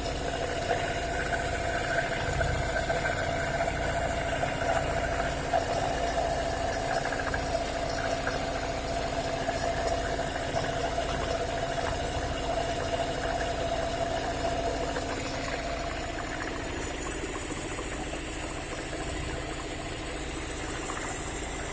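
Engine-driven corn grinding mill, belt-driven by a small stationary engine, running steadily while it grinds corn into chicken feed. A whine fades about three-quarters of the way through.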